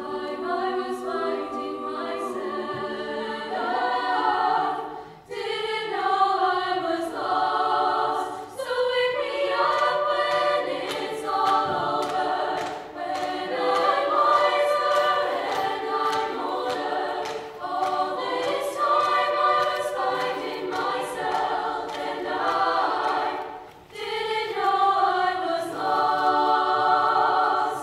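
High-school women's a cappella choir singing in several-part harmony, with brief breaks about five seconds in and again a few seconds before the end.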